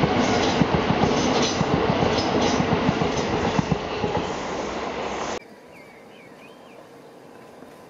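Passenger train running past close by, its wheels clattering with sharp clicks over the rail joints. The train sound cuts off abruptly a little over five seconds in, leaving a quieter background.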